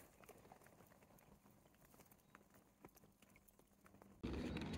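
Near silence with a few faint, scattered clicks. About four seconds in, a steady outdoor background noise starts abruptly.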